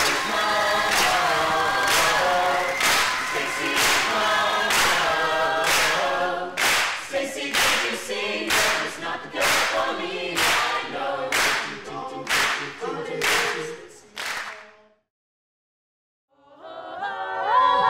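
Mixed a cappella choir singing sustained chords over a steady clap beat, about one clap a second at first and faster later on. Singing and claps stop about 15 s in; after a brief near silence, unaccompanied singing starts again near the end.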